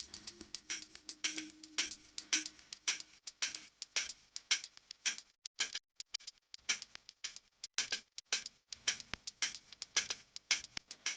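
Cycling helmet being handled: a rapid, irregular run of light plastic clicks and taps, several a second.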